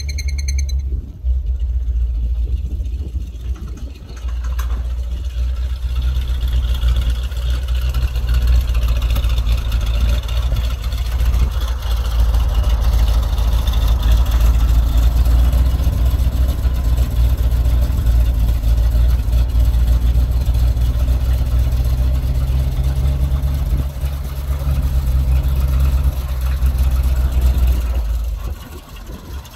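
A 1977 Chevrolet C65 grain truck's engine runs steadily while the dump box is raised on its hoist. The engine sound drops away sharply near the end.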